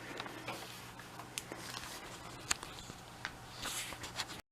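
Faint handling noises: a few light clicks and taps, with a short rustle near the end.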